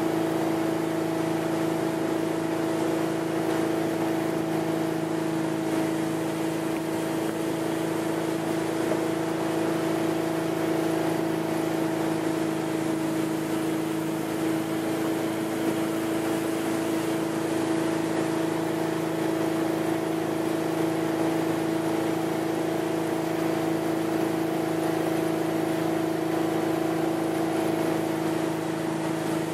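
Tow boat's engine running at a steady speed, an even hum that holds one pitch, over the rush of water from the wake.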